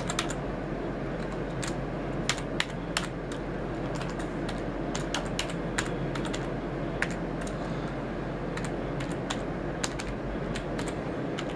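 Keystrokes on a computer keyboard, irregular clicks while a long password is typed in. Under them runs a steady machine hum.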